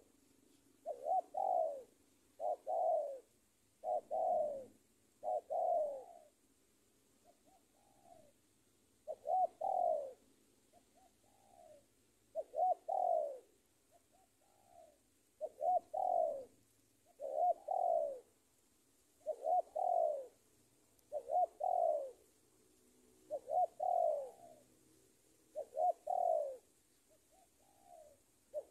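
Spotted dove (tekukur) cooing over and over, a phrase of two or three rolling notes about every two seconds, with fainter short coos between some phrases. It is a decoy bird's call, used to draw in rival male doves.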